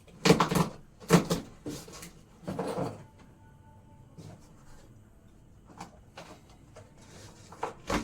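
Handling noises from unpacking a boxed home theater set: several short knocks and scrapes in the first three seconds, then a few faint clicks.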